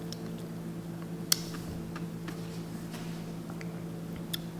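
A steady low hum at one pitch, with a few light clicks and one sharper click about a second in.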